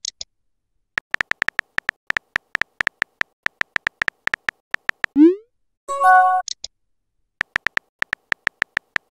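Texting-app keyboard click sound effects tapping out a message, about four to five clicks a second. About five seconds in, a short rising swoosh as the message sends, followed by a brief pitched chime, then the clicks resume near the end as a reply is typed.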